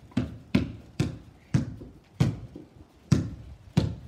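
A Spalding basketball being dribbled on a concrete patio, bouncing at a steady pace of about one and a half bounces a second.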